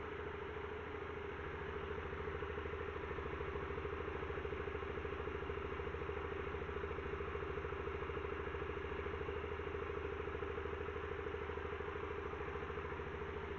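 Yamaha Factor 125's single-cylinder four-stroke engine idling steadily just after its rebuild (rebored cylinder, reground valve seats, new cam chain tensioner and clutch), running smoothly with no knocking.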